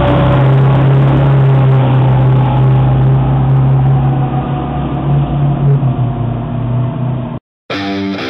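Fire engine driving away with its engine running and its mechanical siren slowly winding down, the siren's pitch gradually falling. It cuts off suddenly about seven seconds in, and guitar music starts near the end.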